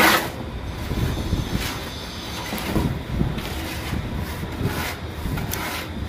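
Steel trowel throwing cement mortar onto a concrete ceiling beam and scraping it, a few sharp slaps and scrapes with loose mortar pattering down, over a steady low rumble.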